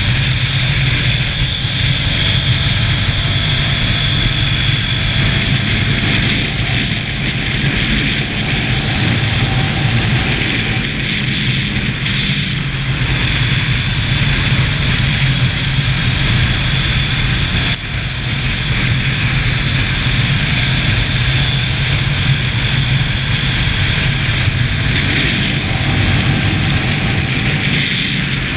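Ducati motorcycle's V-twin engine running hard at speed, heard from an onboard camera with heavy wind rush over the microphone. The engine note stays fairly steady, with a brief dip in loudness about two-thirds of the way through.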